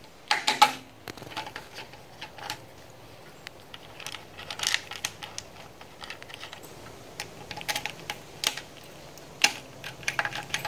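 Irregular light clicks and taps of hands handling wires, connectors and a metal gauge panel, with the loudest knocks about half a second in and again near the end.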